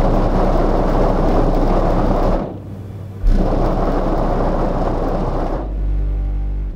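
Dubstep bass played very loud through a truck's large subwoofer system, heard from outside the truck: a heavy, distorted low throb. It drops away for under a second about two and a half seconds in, then comes back with a sudden hit.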